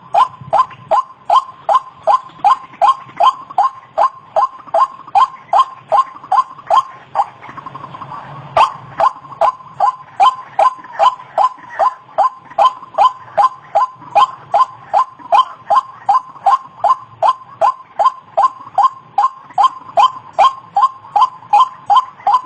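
White-breasted waterhen (ruak-ruak) calling: a fast, even series of loud, sharp notes, about three a second, with a brief gap about eight seconds in.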